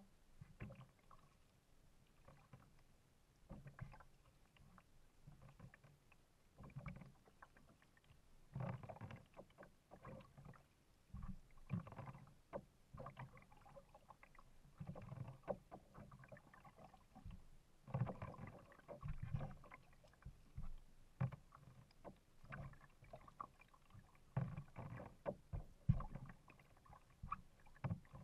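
Kayak being paddled: irregular soft splashes as the paddle blades dip, with water lapping and knocking against the hull.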